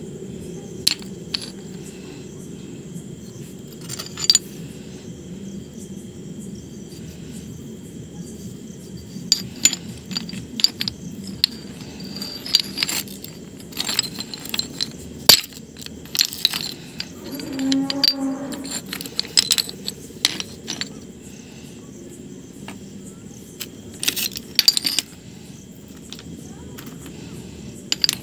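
Pieces of pale chalky stone knocked and clinked together by hand, sharp clicks and clacks coming in scattered clusters over a steady low hum.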